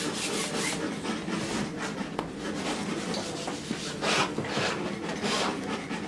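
Oil paint being scraped and rubbed onto a stretched canvas in repeated short strokes. A few strokes stand out, about two seconds in and again about four seconds in.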